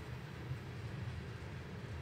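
Freight train of open-top hopper cars rolling past, a steady low rumble of steel wheels on the rails.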